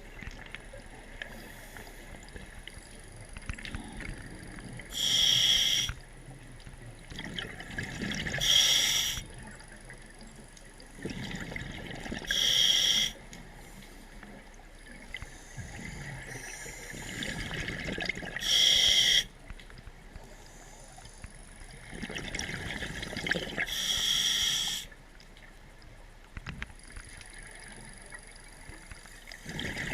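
A scuba diver breathing on a regulator underwater: loud bursts of exhaled bubbles every few seconds, with a quieter hiss between breaths.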